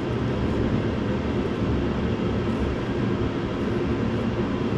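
Steady low rumbling drone of a running machine, even in level throughout.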